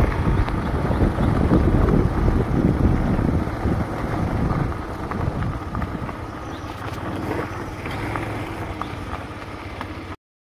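Wind buffeting the microphone on a moving motorcycle, over the low running of its engine, easing off gradually as the bike slows.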